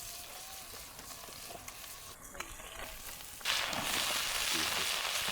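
Trout frying in butter in a pan over a campfire, sizzling steadily. About three and a half seconds in, the sizzle suddenly gets louder.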